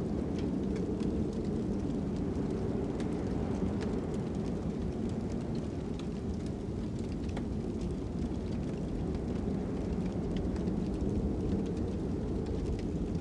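Fire crackling over a steady low wind rumble: frequent small sharp crackles and pops scattered through a constant deep roar.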